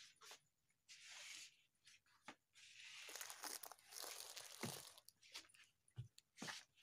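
Clear plastic bags and wrapping crinkling and rustling in irregular bursts, with a few sharp clicks among them.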